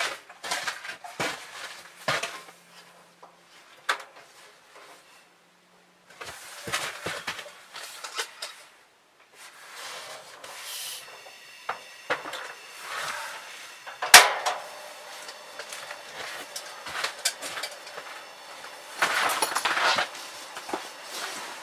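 Scattered clinks, knocks and rustling as camp cookware is handled at a stove, with one sharp knock, the loudest sound, about two-thirds of the way through.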